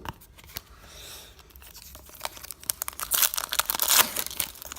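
A foil booster pack wrapper being torn open and crinkled. There is light rustling at first, then dense crackling that grows loud in the second half.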